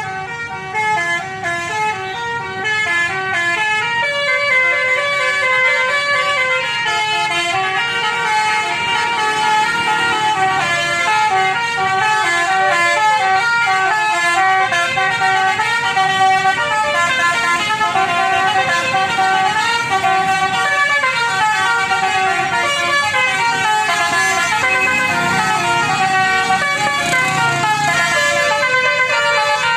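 Telolet basuri multi-tone bus horn playing a melody: several horn notes sounding together, stepping to new pitches a few times a second in a tune. It starts abruptly and plays on without a break.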